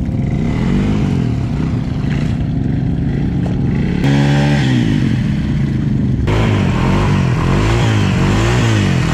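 Small off-road vehicle engine being revved hard in the mud, its pitch rising and falling over and over. It gets louder about four seconds in.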